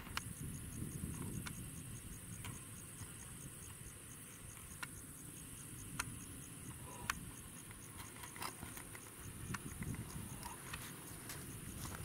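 Insects chirring in a steady high-pitched trill with an even pulse, over a low rumble, with a few faint clicks.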